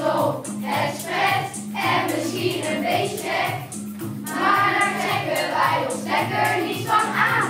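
Children's choir singing a song over instrumental accompaniment with a steady low bass line.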